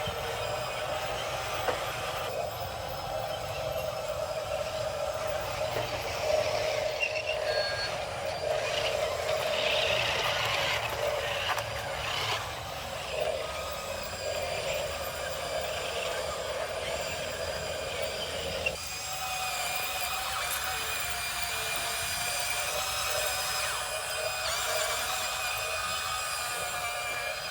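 Radio-controlled toy construction vehicles running: small motors and gearboxes whining steadily, with a change in the sound about 19 seconds in.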